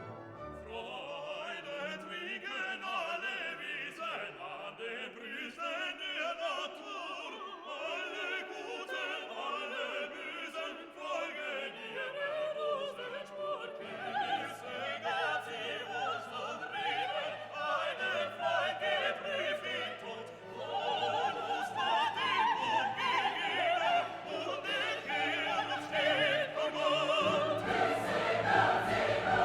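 Background music: a classical orchestral piece with operatic singing.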